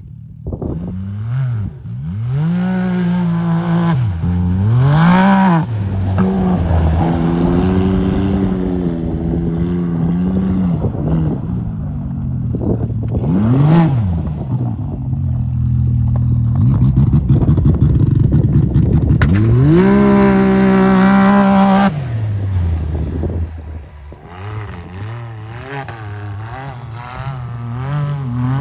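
Can-Am Maverick X3 side-by-side's turbocharged three-cylinder engine revving up and down again and again as it slides through donuts on studded tires in packed snow. There is a quick sharp blip about halfway through and a long high-rev pull a few seconds later, before it drops back.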